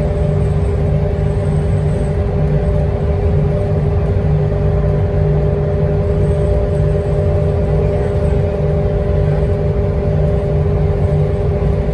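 Interior of a city bus cruising at freeway speed: steady engine drone and tyre rumble, with a constant two-note hum over the low rumble.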